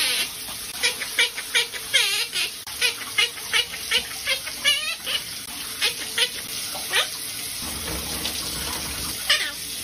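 Monk parakeet chattering in a string of short, rapid squawks and chirps over the steady hiss of a running shower.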